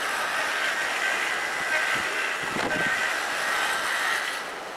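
John Deere compact tractor's three-cylinder diesel engine running steadily as the tractor drives, under a steady hiss.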